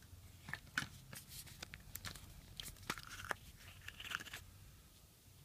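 Yellow plastic Kinder Surprise toy capsule handled and prised open by hand: a quick, faint run of small plastic clicks, creaks and crackles that stops about a second before the end.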